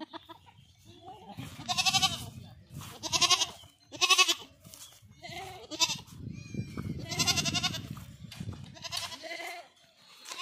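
A young goat bleating again and again, about six wavering calls a second or two apart.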